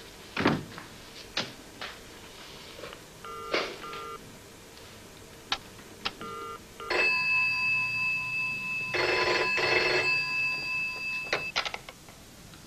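Office telephone ringing: two short chirps, then a steady ring of about four seconds, cut off by a couple of clicks near the end.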